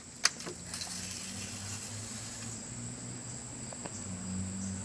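Steady high-pitched insect drone, like crickets, with a faint low hum beneath it and a single sharp click shortly after the start.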